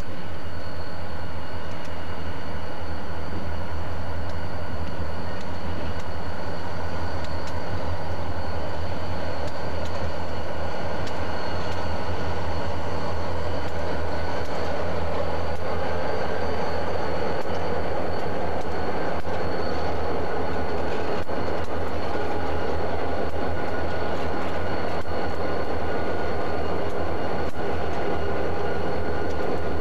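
A consist of EMD GP40 diesel-electric locomotives rolling slowly past close by, their 16-cylinder two-stroke diesels running with a steady low drone and steady high whining tones. The rumble swells about halfway through, and there are a few faint clicks from the rails.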